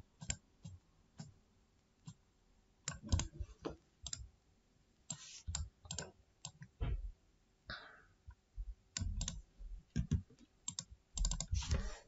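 Scattered computer mouse clicks, sharp and irregular, then a quick run of keyboard keystrokes near the end.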